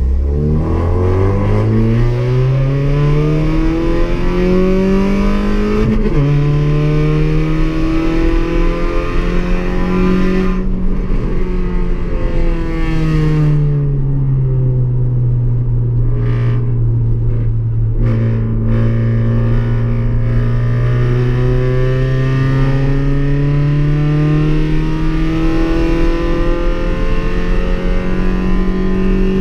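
Car engine accelerating hard through the gears: the pitch climbs steeply, drops sharply at a gear change about six seconds in and climbs again. Around the middle it falls away and holds low and steady for several seconds, then builds again near the end.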